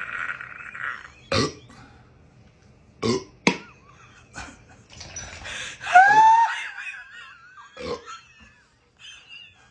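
A person burping several times in short belches, the gas from a bottle of Sprite chugged in one go coming back up. The loudest belch, about six seconds in, has a pitch that rises and then falls.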